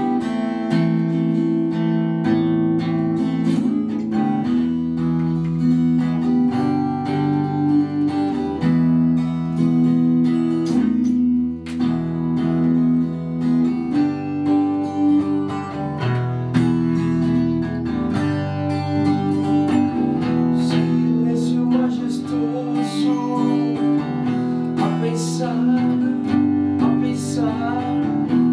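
Acoustic guitar being strummed, its chords changing every second or two and the strokes of the strum clearly audible.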